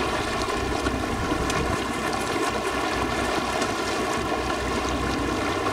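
Boat engine running steadily, with the rush of water and wind over it.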